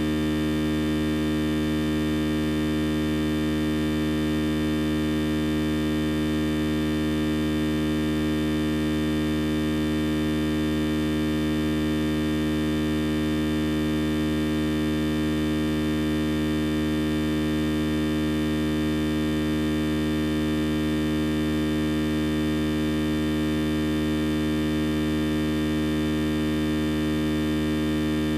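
A steady electrical hum with many overtones, unchanging throughout, at a fairly high level.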